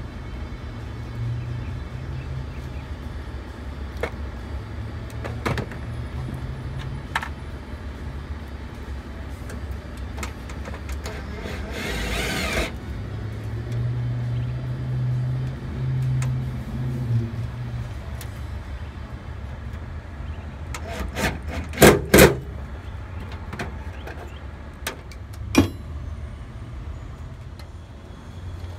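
Hand work at an aluminium diamond-plate truck toolbox: a cordless drill runs in short spells, the longest about three seconds midway, with sharp knocks and clicks on the metal, the loudest a pair of knocks about two-thirds of the way through, over a steady low hum.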